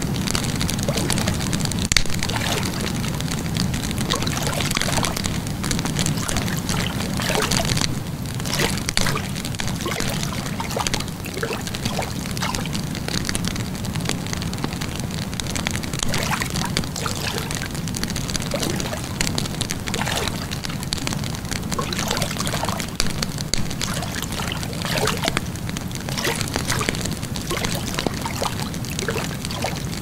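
Wood fire in a fire pit crackling, with irregular pops and snaps over a steady low rushing sound.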